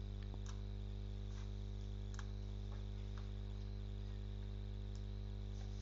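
Steady electrical hum with a faint high whine on the recording line, with a few faint clicks scattered through it.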